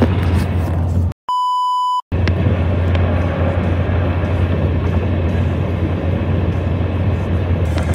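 Steady road and engine noise heard inside a moving car at highway speed, with a strong low hum. About a second in, the road noise cuts out for just under a second and is replaced by a single steady electronic beep, after which the road noise resumes.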